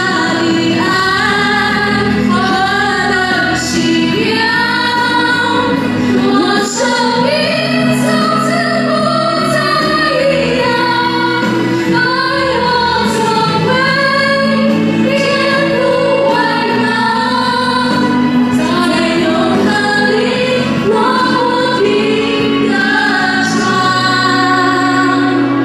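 Two women singing a Mandarin worship song in unison through microphones, over instrumental accompaniment. Near the end the voices stop on the last line and a held accompaniment chord carries on.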